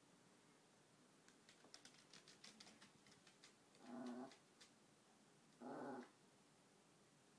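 Chihuahua's claws ticking faintly on the floor as she dances, then two short pitched growl-like vocalizations, about four and six seconds in, each lasting about half a second.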